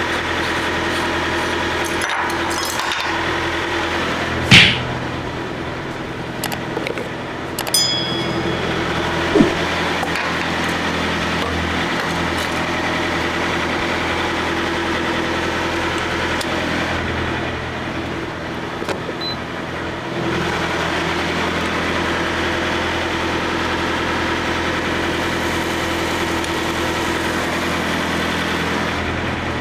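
Idling diesel engine with a steady hum. A sharp knock comes about four and a half seconds in, two short high beeps near eight seconds, and another knock about nine seconds in.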